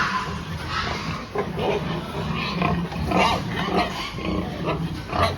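Pigs grunting and squealing in many short, irregular calls one after another.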